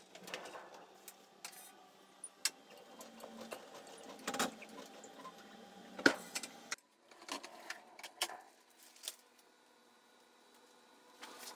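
Hand-cranked stone lithography press running its bed through: a steady mechanical running sound with many clicks and knocks and one loud clank about six seconds in, then it stops abruptly. After that come scattered clicks and rustling as a large sheet of printing paper is handled.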